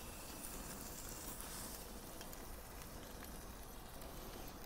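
Steaks sizzling faintly on a hot grill: a soft, even hiss with a few small crackles.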